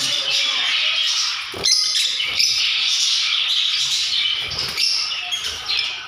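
A flock of peach-faced lovebirds squawking and chattering continuously, shrill and dense, with a couple of brief knocks partway through.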